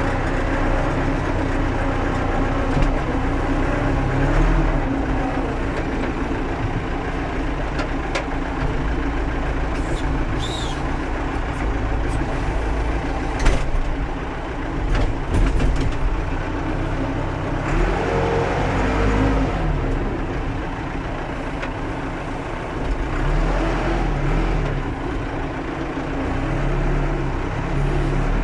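Massey Ferguson 50B backhoe loader's engine running under varying load, its pitch rising and falling as it works half-frozen ground. A brief high screech about ten seconds in, and a few sharp metal knocks around the middle.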